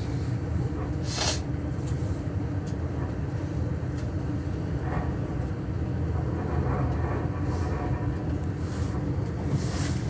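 Interior running noise of a Class 395 electric train: a steady low rumble of wheels on the rails. A brief sharp noise comes about a second in.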